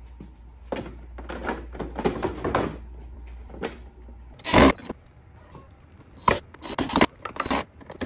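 Hard plastic body covers of a Power Wheels ride-on toy being handled and pressed into place on its chassis: a run of plastic knocks and clatters, with one loud thud about halfway through and a few more sharp knocks after it.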